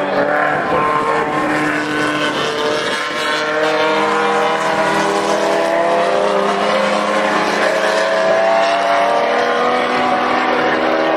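Several racing car engines running hard together at high revs, their pitches climbing slowly as the cars accelerate.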